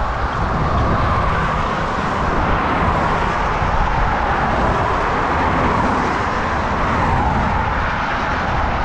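Steady rushing road noise from riding a bicycle along a highway shoulder: wind over the camera and tyres on asphalt, with motor traffic on the road alongside.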